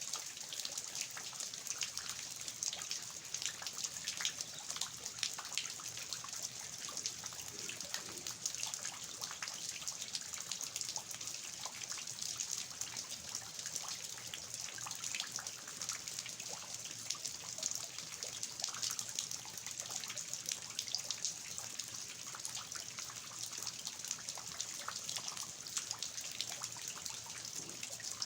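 Steady rain with water dripping and trickling off the eaves of a traditional house: a continuous hiss scattered with many small drips.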